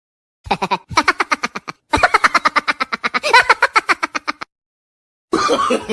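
Comedy sound effect: a rapid run of short pitched pulses, about ten a second, in two stretches, the second lasting about two and a half seconds. A voice starts near the end.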